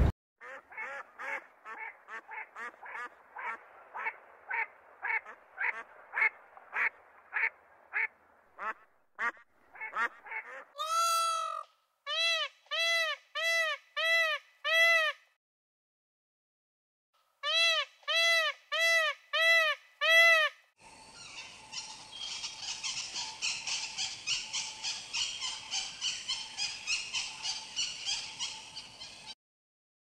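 A sequence of bird calls. First comes a quick run of short repeated notes that grows louder. Then a peafowl gives two series of five loud, ringing honking calls with a short pause between them, and a dense raspy chatter follows.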